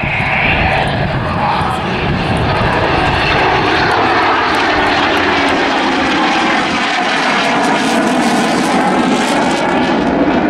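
Eurofighter Typhoon jet and Merlin-engined Spitfire Mk Vb flying past together in close formation, their engines making a steady, loud roar.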